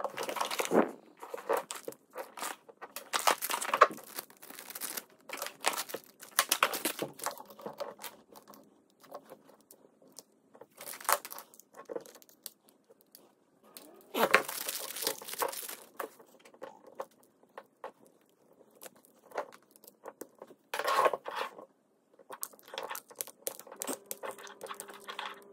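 Plastic packaging crinkling and rustling in irregular bursts, with light clicks and taps of handling, as the camera and its accessories are unwrapped.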